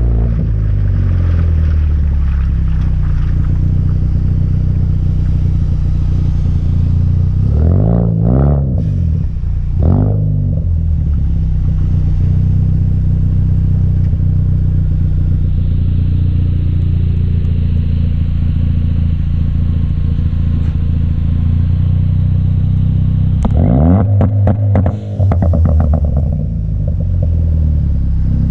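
Car engine through an AWE Track aftermarket exhaust while driving, a steady cruising drone with quick rev changes about eight and ten seconds in. Late on the revs rise and fall with a burst of rapid crackling pops on lift-off, from an ECU tune set for overrun crackles.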